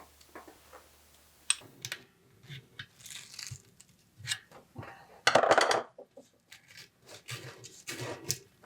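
Workshop handling sounds from bicycle parts and tools: scattered clicks, clinks and short scrapes, with one louder half-second scrape or rustle about five seconds in.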